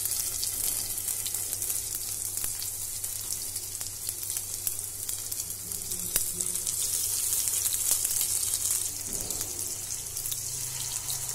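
Masala-coated seer fish steaks shallow-frying in hot oil in a frying pan: a steady sizzle with fine crackles, as more steaks are laid into the oil one at a time.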